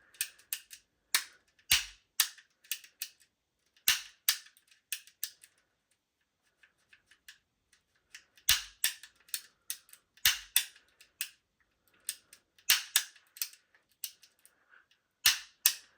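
Steel hammer and trigger mechanism of an Armourer Works G18C airsoft pistol frame, slide off, being worked by hand: sharp metallic clicks and snaps in quick clusters, with a quieter stretch in the middle.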